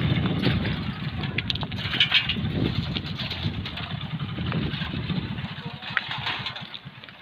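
Motorcycle engine idling close by with a steady, rapid low putter, getting quieter near the end.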